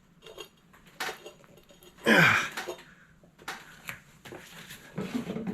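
Metal clinks and scraping as a mini tire changer's steel dismount bar is forced around a small snowblower wheel rim to pop the tire off the bead, with one louder, longer scrape about two seconds in.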